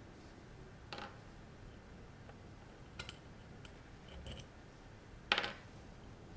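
A few small, sharp clicks and taps from a screwdriver and tiny screws being worked on a camera body, the loudest about five seconds in.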